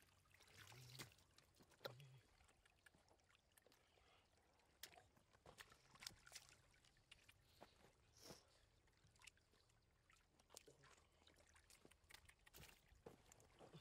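Faint small splashes and trickling in shallow water, with scattered short clicks and rustles, as hands and a plastic basket scoop catfish out of a muddy trickle.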